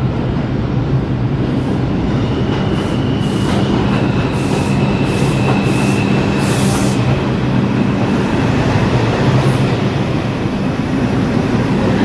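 New York City Subway 4 train of R142-family cars rolling into the station and slowing to a stop, with a steady low rumble and hum. A thin high squeal runs from about two and a half to seven seconds in, with short hissy bursts over it.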